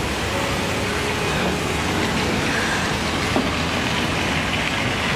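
A steady rushing noise, even in level throughout, with a faint held tone underneath.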